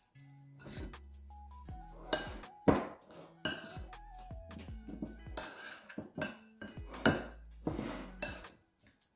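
A utensil knocking and scraping against a mixing bowl while mashed sweet potato filling is stirred, in irregular knocks about once or twice a second. Faint background music with held notes underneath.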